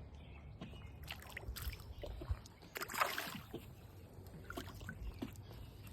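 Faint water sounds and scattered light knocks of a hooked small smallmouth bass being brought in and landed, with a short splash about three seconds in.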